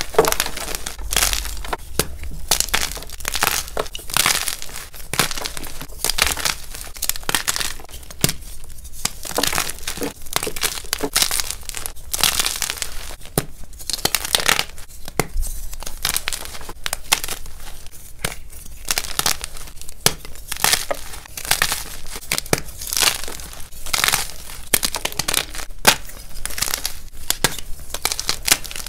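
Blocks of gym chalk crushed and crumbled by hand, with dense, irregular crunching and crackling, along with the crinkle of the paper wrappers on the blocks.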